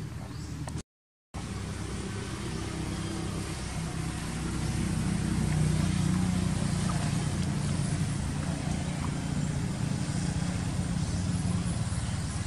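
A motor vehicle's engine running steadily, growing louder about five seconds in and then holding. The sound drops out to silence for a moment about a second in.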